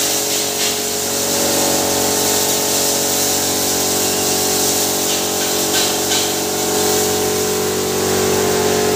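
Hammer mill (pulverizer) running steadily while grain is fed into its hopper for maize grits, giving a constant machine hum with several steady tones under a strong hiss.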